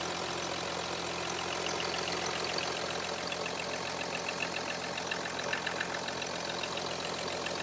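Audi Q7's 3.0 TDI V6 turbodiesel idling steadily on its first start after an oil cooler, water pump and oil filter housing replacement, with a light, evenly repeating ticking of diesel clatter over the running noise.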